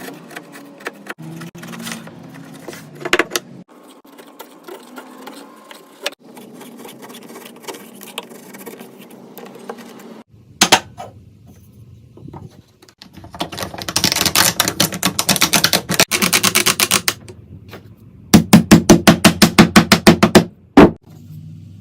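Woodworking shop noise: quiet handling and scraping, then two runs of rapid, loud, sharp knocks at about six a second, the second run being the loudest.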